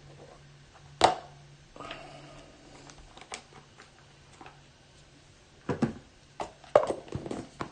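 Handling noise from card packs and boxes on a table: one sharp knock about a second in, a few faint ticks, then a cluster of clicks and knocks in the second half, over a faint steady low hum.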